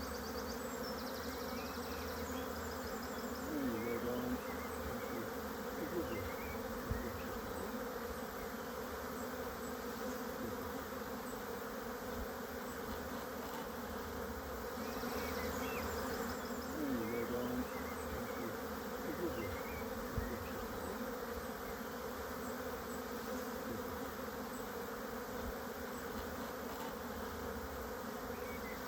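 Honeybees buzzing in a steady, massed hum from an opened hive.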